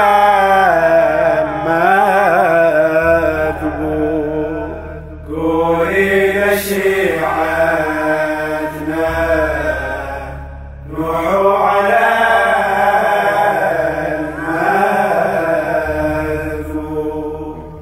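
A man chanting a Shia lamentation (latmiya), singing long drawn-out melodic phrases with brief pauses for breath about five and ten seconds in, over a low steady drone that changes note a few times.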